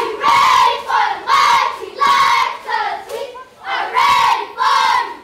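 A crowd of schoolchildren shouting a chant in unison: about six loud, rhythmic shouts, each less than a second apart.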